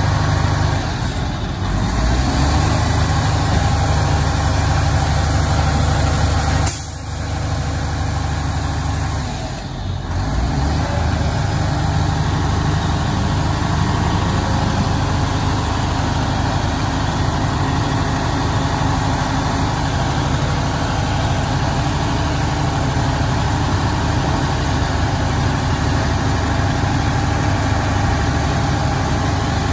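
The Mack Granite rolloff truck's diesel engine runs steadily, driving the American Rolloff hydraulic hoist as it tilts a compactor container up. There are a few short dips in the engine's level in the first ten seconds.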